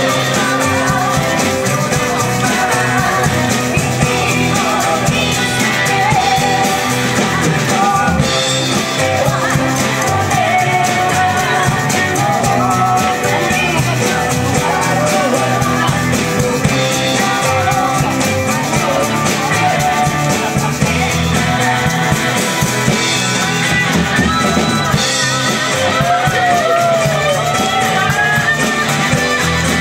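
Live band playing a rock-style song: several voices singing together over acoustic guitar, electric bass, drum kit and keyboard.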